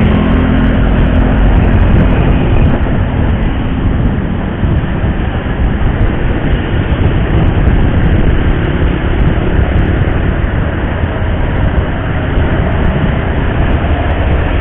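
Steady wind and road noise from a moving motorcycle, with its engine running underneath; a faint engine hum fades after about three seconds.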